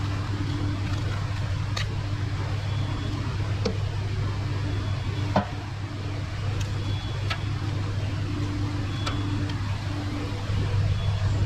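A steady low machine hum with a short sharp click repeating about every two seconds.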